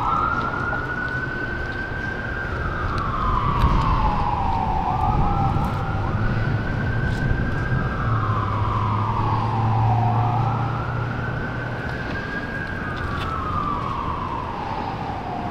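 Emergency vehicle siren in a slow wail: three rise-and-fall cycles, each climbing and then gliding down over about five seconds. A low engine rumble runs under it through the middle.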